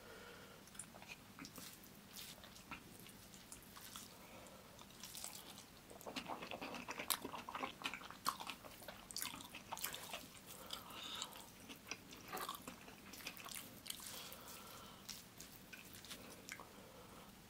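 Close-miked chewing and wet mouth sounds of a person eating rice biryani by hand, with soft squelches of fingers mixing the rice and gravy. The smacks and clicks come thickest in the middle stretch.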